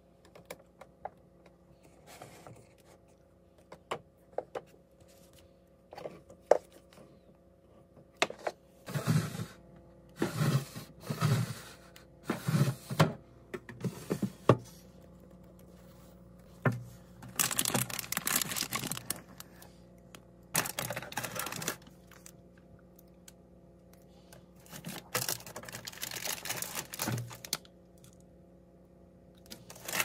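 Bottles and plastic-wrapped food packages being handled in an open refrigerator: scattered clicks and knocks, with several bouts of plastic packaging rustling, over a steady low hum.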